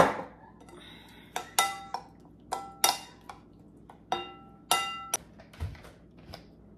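A metal spoon clinking against a ceramic bowl as a liquid sauce is stirred: about eight sharp, ringing clinks at uneven intervals, after a louder knock right at the start.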